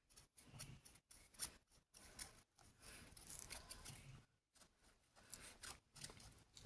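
Faint, irregular scratching and rubbing of a brush-tip marker being stroked and dabbed over a rubber stamp to ink it.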